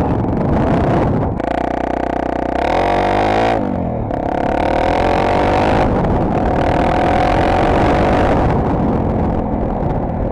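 Honda Tornado 250's single-cylinder four-stroke engine running under way, mixed with heavy wind noise on a helmet-mounted camera. The engine note drops about three seconds in, then climbs again.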